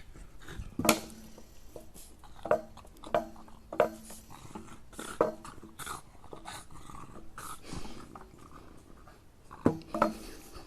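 A pet animal making short pitched vocal sounds, about nine of them spread over ten seconds, several starting with a sharp click or knock.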